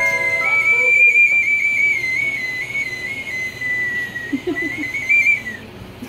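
Small toucan-shaped bird whistle blown in one long, high, warbling note that wavers in little steps, sags slightly in the middle and rises again before stopping just before the end.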